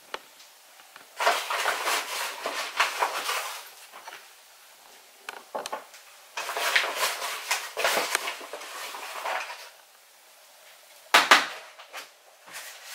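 Spoon scooping gram flour from a crinkly plastic packet into a plastic food-processor bowl: two long bursts of rustling and scraping, then one sharp knock near the end.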